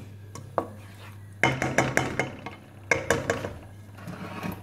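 Slotted wooden spatula stirring and scraping a thick masala paste in a stainless steel pan, knocking against the metal, with two runs of quick knocks about one and a half and three seconds in.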